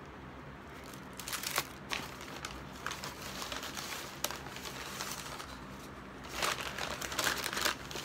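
Paper takeout bag and food wrappers crinkling and rustling as a hand rummages inside the bag. It comes in short bursts about a second in and around four seconds in, with a longer stretch near the end.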